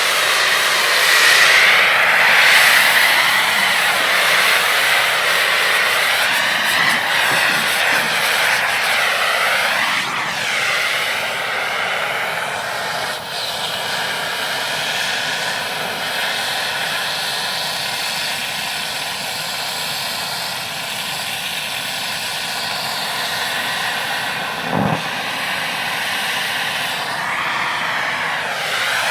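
Air torch flame hissing steadily against metal, its tone sweeping up and down now and then. There is a brief low knock near the end.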